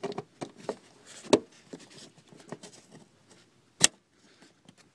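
Hand handling a plastic door wiring-harness connector and its rubber boot in a car door jamb: a run of small clicks and rustles, with two sharp clicks about one and a half and nearly four seconds in.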